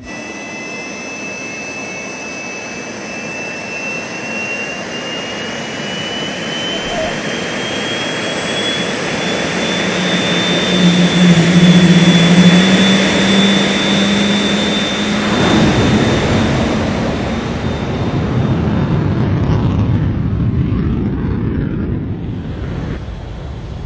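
F-15 fighter's jet engines running, with a high whine that climbs in pitch over the first ten seconds or so as the engines spool up. Under it a broad rush grows louder to a peak about halfway through, holds, then drops away near the end.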